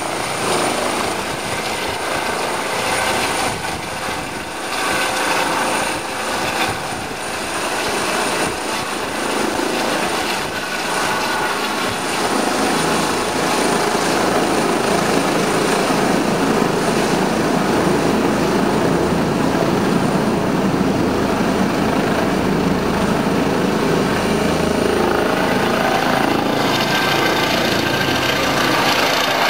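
Eurocopter EC135 helicopter taking off and climbing away: steady rotor thrum with a thin high turbine whine over it. It grows louder from about halfway through as the helicopter passes overhead.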